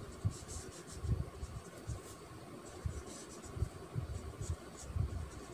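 Marker pen writing on paper: short scratchy strokes as the words are written, with soft irregular low bumps of the hand and pen against the sheet.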